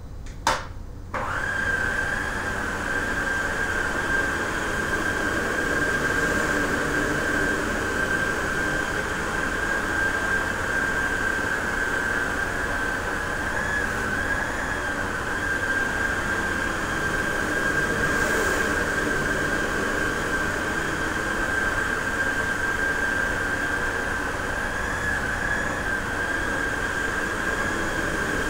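A vacuum cleaner switched on: a click, then about a second in the motor starts and runs steadily with a high whine.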